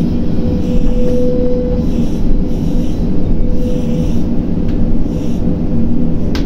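Crane machinery running with a loud, steady low rumble and a humming tone that comes and goes, as the unloader's hoist lowers a wheel loader slung beneath its grab.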